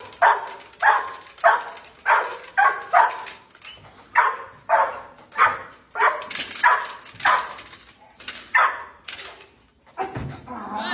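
A dog barking over and over, about two barks a second, in a run of some sixteen short barks that stops shortly before the end.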